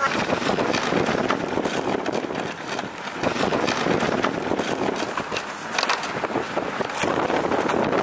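Vehicle driving over a snow-covered street, a steady rushing noise with wind on the microphone.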